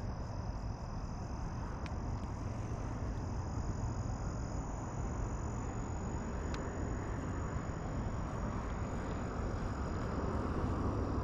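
Steady outdoor background noise: a low rumble and hiss with no distinct events, and faint steady high tones above it.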